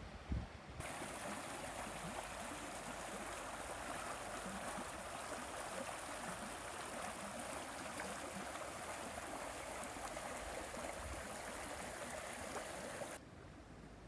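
Shallow creek running over stones, a steady rush and babble of water that starts abruptly about a second in and cuts off near the end. A few low thumps at the very start.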